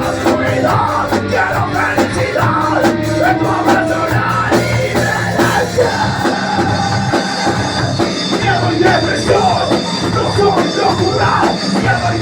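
Nu-metal band playing loud at rehearsal, drums, bass and distorted guitars together, recorded on a mobile phone.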